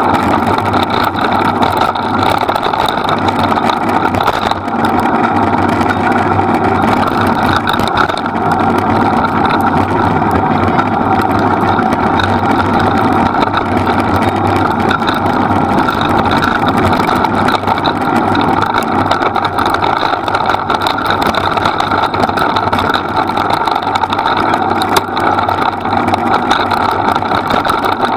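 A vehicle's engine running steadily at a constant low speed, mixed with the rolling noise of the rig moving over a dirt track.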